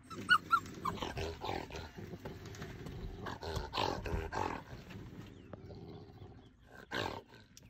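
Trapped African civet growling and spitting in rough bursts for several seconds, with one more short burst near the end: the defensive threat of a wild animal caught in barbed wire. Near the start, a dog gives two short high yelps.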